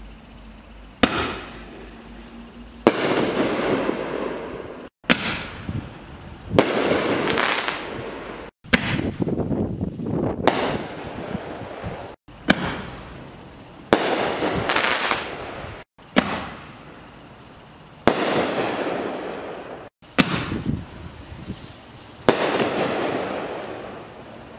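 Six 1.75-inch reloadable ball shells fired one after another from a mortar tube. Each one launches with a sharp bang and bursts overhead with a second bang about two seconds later, followed by a crackle that fades away.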